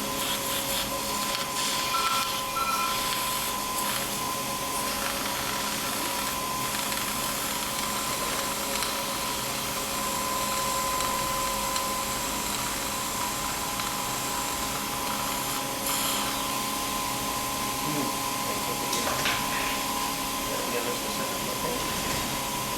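A steady machine hum with an even hiss and several held tones, with two short high tones about two seconds in.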